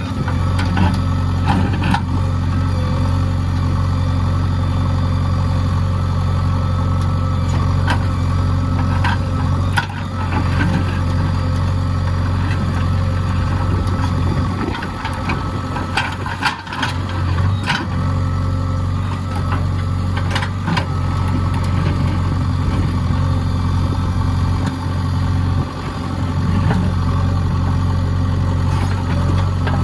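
JCB backhoe loader's diesel engine running steadily, with occasional sharp knocks.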